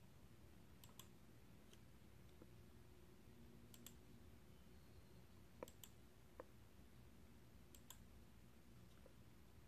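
Near silence: faint room tone with a few scattered faint clicks, some in close pairs.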